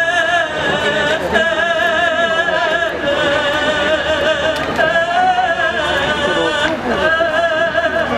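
A single high voice chanting a Māori ceremonial call in long-held, strongly wavering notes. The phrases break briefly about every one to two seconds, over low crowd noise.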